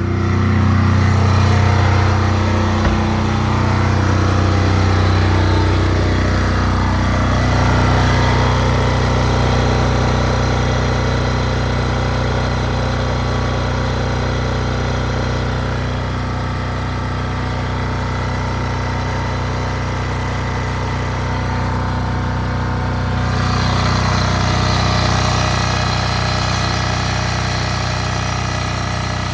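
Single-cylinder air-cooled diesel engine of a Chinese generator, a copy of the Yanmar L100, running steadily under heavy load with a regular throb. It is driving a 4,800 W heater, near the generator's 5,000 W maximum.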